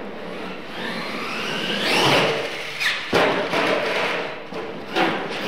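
Losi LMT radio-controlled monster truck's electric motor whining, rising and falling in pitch as it is throttled on and off, with sharp thuds of the truck hitting the dirt at about three seconds and five seconds in.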